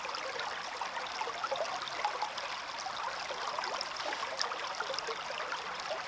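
Small stream running and trickling, a steady rush of water with many small splashes and burbles.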